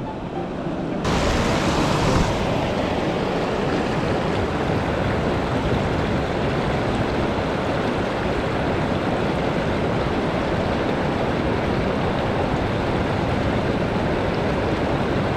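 Steady rushing of a fast, shallow river current, heard close to the water; the rush gets louder sharply about a second in.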